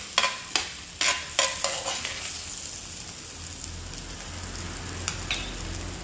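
Whole garlic cloves frying in a cast-iron skillet with a steady sizzle. In the first two seconds a spoon knocks and scrapes against the pan about five times as the garlic is stirred.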